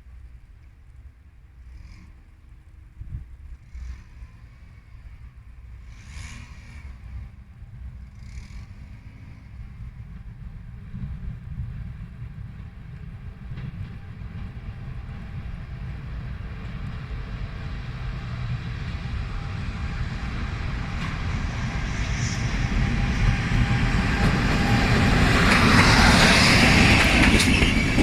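A train approaching on the rails, its low rumble growing steadily louder over many seconds until, near the end, it is close and the hiss and clatter of wheels on the track set in.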